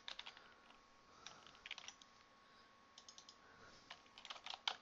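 Faint typing on a computer keyboard: short runs of keystrokes with pauses between them, the busiest run near the end.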